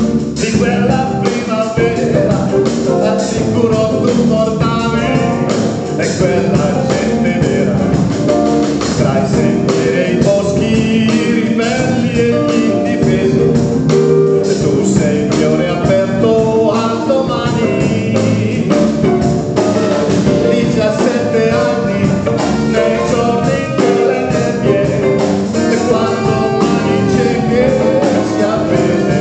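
Live band playing a song: a man sings in Italian over electric guitar, electric bass and drum kit.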